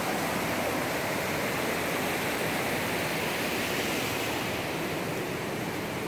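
Rushing river running fast over boulders: a steady rush of white water.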